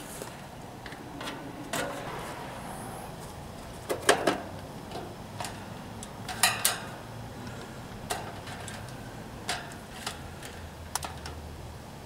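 Clanks and clicks of the sheet-metal fan grille and cabinet of an outdoor AC condenser being handled as the unit is put back together. Two sharp knocks stand out about four and six and a half seconds in, with lighter clicks after.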